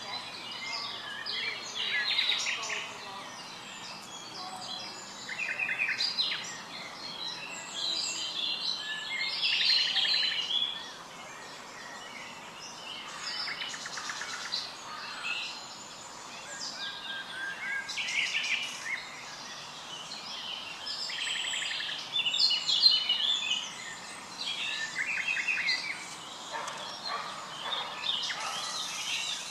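Birds singing and calling: short chirps and rapid trills come in bursts every second or two over a faint steady hiss.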